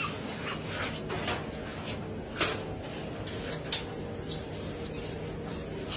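A group of otters squeaking and chirping: many short, high calls that fall in pitch, coming thick in the second half, over a steady rustling noise with a few sharp clicks.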